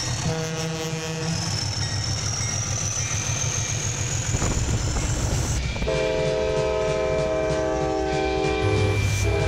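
Diesel locomotive air horns over engine rumble: a short multi-note horn chord near the start, a longer chord held for about three seconds past the middle, and another starting near the end. A high whine rises slowly through the first half, and the sound changes abruptly midway as one clip cuts to another.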